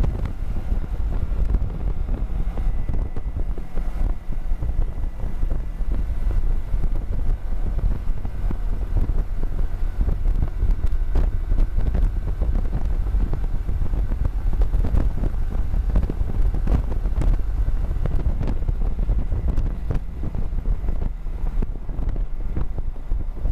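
Yamaha sport motorcycle riding at road speed, its engine running under heavy wind buffeting on the tank-mounted microphone, with a few brief knocks along the way.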